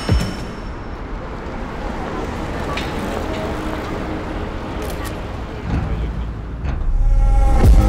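City street ambience: traffic noise and indistinct voices. Near the end, music with a heavy bass line comes back in.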